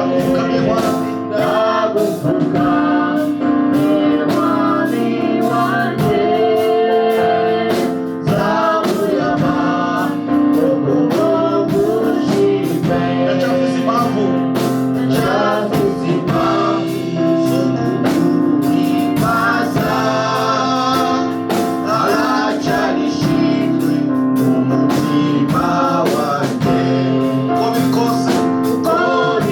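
Live gospel praise-and-worship music: a group of singers over a band, with sustained chords and a steady beat.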